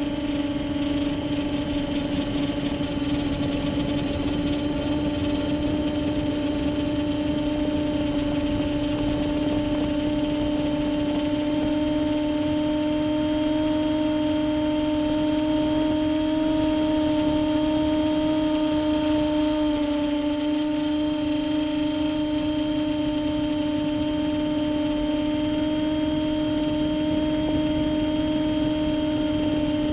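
Brushless multirotor motors and their ESCs running at a constant speed, giving a steady hum with a high electronic whine on top. It is the odd sound that the owner suspects comes from the ESCs or the motor bearings and that goes with bad vibrations.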